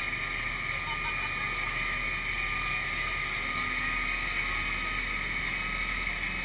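Amphibious truck under way on water: a steady drone from the running vehicle with a constant high whine, and water washing along its hull.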